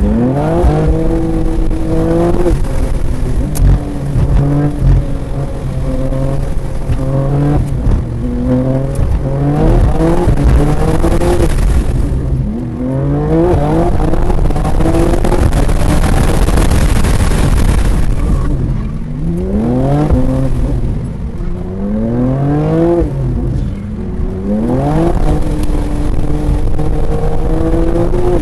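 BMW M2 (G87) twin-turbo straight-six at full throttle on a race track, climbing through the revs with sharp drops at each upshift, then lifting and blipping down. A stretch of loud hiss comes midway: tyres and spray on the wet track.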